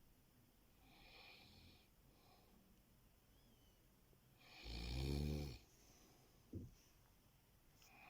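A sleeping person snoring: a faint breath about a second in, then one loud, rattling snore about halfway through, followed by a brief short sound.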